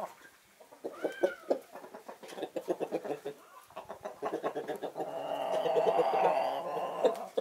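Backyard hens clucking. About a second in comes a short rising-and-falling call, then a string of quick short clucks, and from about halfway a longer, continuous run of clucking.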